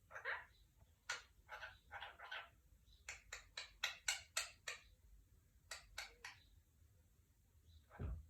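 Pet parrot chattering in short, sharp calls, with a quick run of about a dozen notes in the middle and two more a little later.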